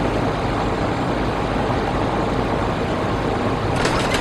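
Steady drone of noise inside an aircraft cockpit, with a few short clicks near the end.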